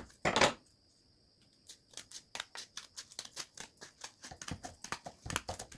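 Scissors cutting through sheets of paper: a run of short snips that starts about a second and a half in and comes faster near the end, with a brief rustle of paper just after the start.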